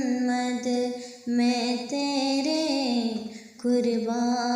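A naat, an Urdu devotional song praising the Prophet Muhammad, sung on long held notes that glide from one pitch to the next. The voice breaks off briefly twice, about a second in and again near the end.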